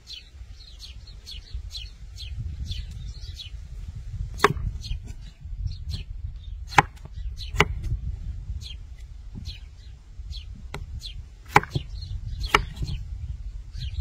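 A knife chopping on a board, with about five sharp, irregularly spaced knocks. Through it a small bird chirps rapidly, about two short falling chirps a second.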